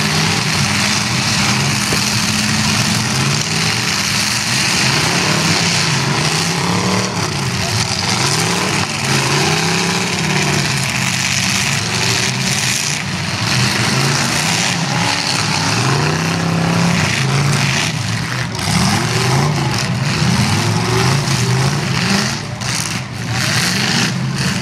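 Demolition derby car engines revving up and falling back, several at once and overlapping, over a constant noisy wash.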